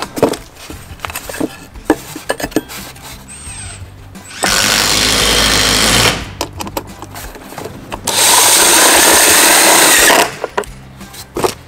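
Cordless drill driving screws through a metal bracing clip into a 2x4, in two steady runs of about two seconds each, the first starting about four seconds in and the second about eight seconds in. Short clicks and knocks of handling come before and between the runs.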